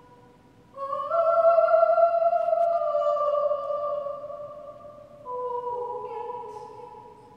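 A woman singing long, held notes in an operatic style. One note swells in about a second in and is held for several seconds, then a lower note comes in about five seconds in and fades away.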